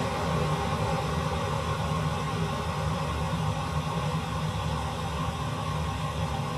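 Steady rushing noise with a low hum.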